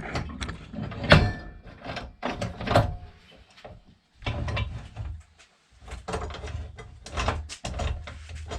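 Irregular metal clunks, knocks and scrapes of parts being handled and adjusted while a metal chop saw's vise and workpiece are set up for a 45-degree cut.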